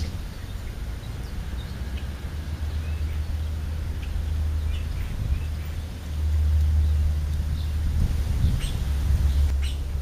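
Faint, scattered bird chirps over a steady low rumble that grows louder about six seconds in.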